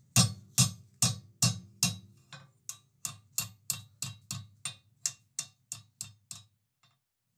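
Hand hammer striking a red-hot 12 mm round steel bar over the horn of an anvil, bending it into a U: steady blows about two to three a second, the first few with a short metallic ring, growing fainter until they stop near the end.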